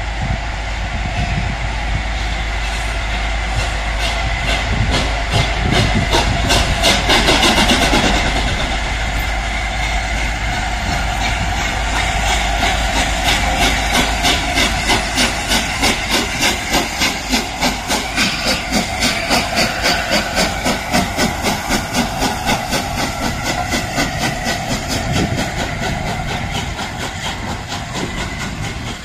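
LNER Class A4 three-cylinder steam locomotive 60007 Sir Nigel Gresley pulling away with its train, steam hissing and the exhaust beating in an even rhythm, loudest as the engine passes about a third of the way in. The beats then run on steadily while the coaches roll by.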